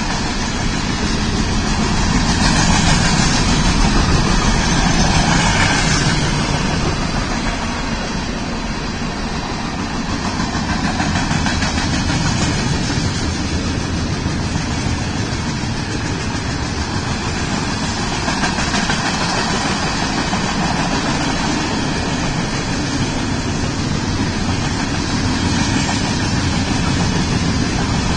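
Union Pacific freight train cars rolling past: a steady rumble and clatter of steel wheels on the rails, swelling a little twice as the cars go by.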